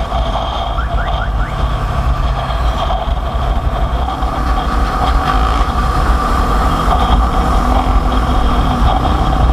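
Motorcycle riding on the road: the engine runs steadily under heavy wind rumble on the microphone.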